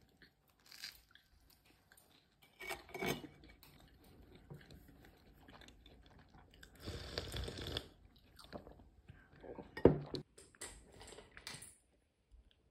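A person chewing and crunching food in bursts, with a sharp clack about ten seconds in.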